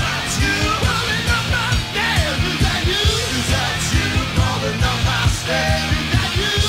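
Rock song playing as background music: a sung melody over bass and a steady drum beat.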